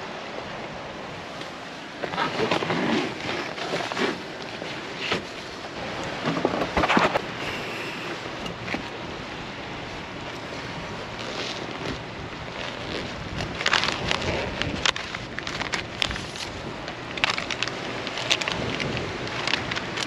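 Strong sea wind buffeting the microphone, rising into irregular loud gusts over a steady rushing background.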